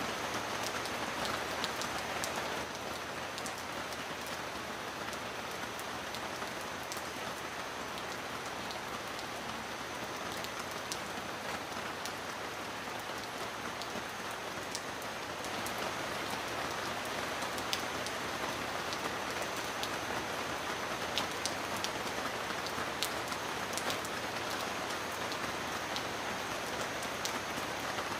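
Heavy rain drumming steadily on a metal roof, with sharp individual drops ticking through the downpour. It grows a little heavier about halfway through.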